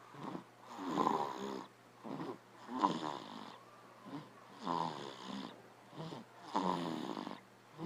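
Mock snoring voiced by a person: four drawn-out snores about two seconds apart, each with a short breath just before it.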